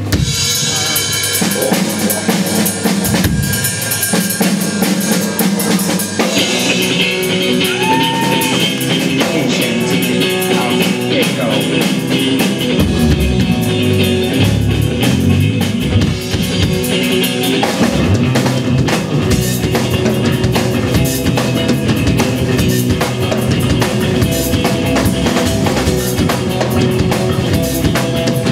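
A band playing live on electric guitars and a drum kit, loud, with the drums hitting steadily.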